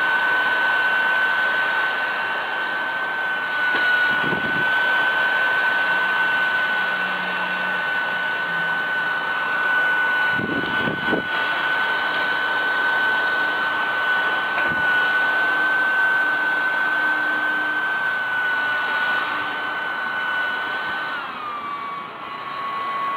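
A mini USB computer vacuum cleaner's small motor runs with a steady high whine and a rush of air, with a few knocks as it is handled. Near the end the whine drops in pitch.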